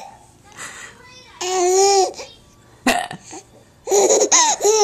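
A baby with the hiccups laughing in high-pitched bursts: a drawn-out squeal about one and a half seconds in, a sharp sudden hiccup about three seconds in, and a run of quick giggles near the end.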